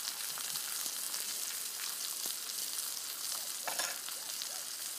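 Food sizzling in a frying pan: a steady hiss with small, irregular crackles.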